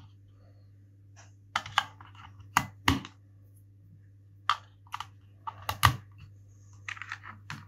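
Godox XPro II flash trigger having its batteries put back in: a string of separate sharp plastic clicks and knocks as the batteries and compartment are handled.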